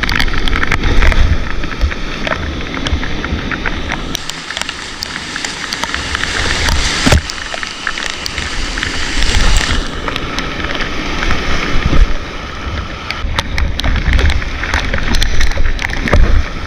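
White water rushing and splashing in a rocky river rapid, with frequent sharp knocks and clicks throughout.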